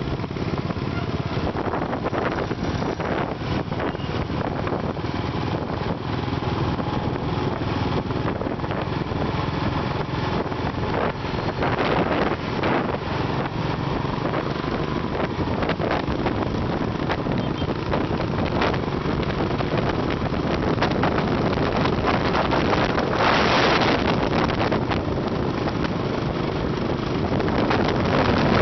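Wind rushing over the microphone of a camera on a Royal Enfield motorcycle at road speed, mixed with the engine and tyre noise of riding. Stronger gusts of wind come about twelve seconds in and again about two-thirds of the way through.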